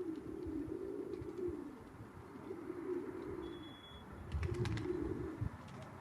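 A dove cooing: low, soft coos of about a second each, repeated every second or two. There is a brief high chirp in the middle and a quick run of sharp clicks a little after four seconds in.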